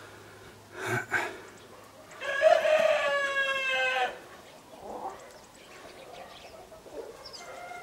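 A rooster crowing once, a long call of about two seconds that falls slightly in pitch toward its end. A short loud noisy flurry comes just before it, and faint clucks follow.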